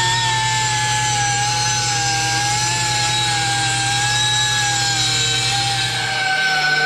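Angle grinder on a mower-blade sharpening jig, running with a steady high whine as it grinds a lawnmower blade, its pitch sagging slightly under load. A low hum underneath stops near the end.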